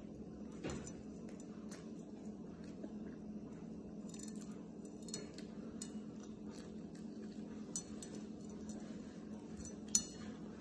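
Close-up eating sounds of a grilled flatbread wrap being bitten and chewed, with scattered small mouth clicks and a sharper click near the end, over a steady low hum.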